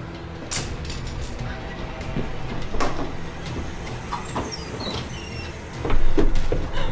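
A glass sliding balcony door being pulled open, with scrapes and knocks loudest about six seconds in, over a steady low rumble.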